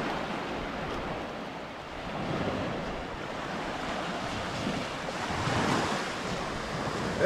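Small waves breaking and washing up a sandy shore, the surf swelling and easing a couple of times.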